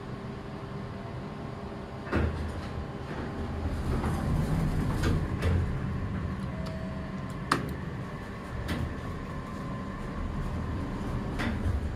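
Elevator car doors sliding, with a clunk about two seconds in, over a steady low machine hum. A short beep as a car button is pressed is followed by a sharp click, and there are more door clicks near the end as the doors move again.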